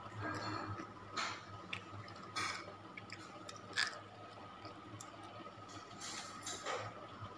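Eating crispy fried banana fritter (pisang goreng kremes): fingers rustling in the crunchy crumbs, then a bite and chewing. There are several short, sharp crackles, the loudest about four seconds in, over a faint steady hum.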